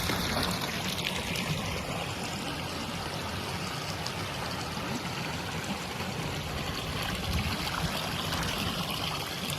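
Steady rush and trickle of a stream pouring down a small rocky waterfall.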